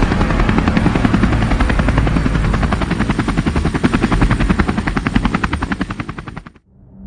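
A fast, even chopping like a helicopter rotor that slows and fades near the end, then cuts off abruptly.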